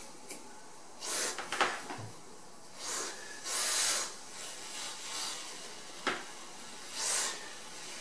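Pipe-freeze aerosol can sprayed in several short hissing bursts into an insulation cup around a 15mm copper pipe, with a few sharp clicks in between. The refrigerant is vaporising almost as fast as it goes in, with no liquid pool formed yet.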